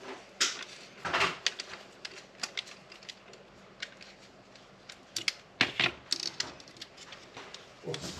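Irregular sharp clicks and light knocks of hand tools and small plastic and metal parts being handled while wiring an electrical accessory, with a few louder knocks among them.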